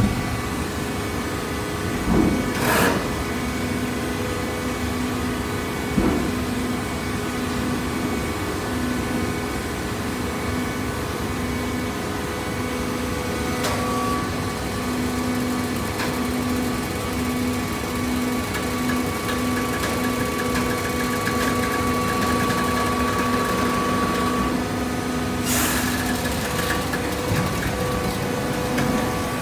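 Horizontal hydraulic baling press running, a steady motor and pump hum with a few sharp knocks along the way.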